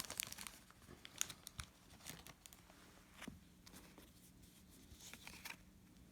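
Faint crinkling and tearing of a foil trading-card pack wrapper as the pack is opened and handled, in scattered short rustles.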